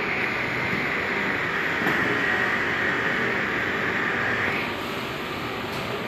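Bottle-packing conveyor belt machine running: a steady mechanical running noise with a high whine that drops slightly in pitch and stops about four and a half seconds in.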